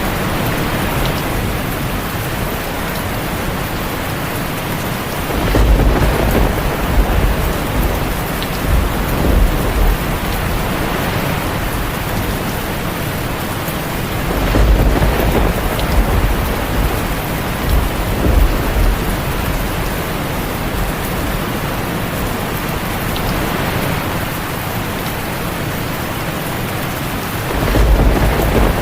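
Steady heavy rain with rolls of distant thunder: three low rumbles, about six seconds in, around the middle, and again near the end.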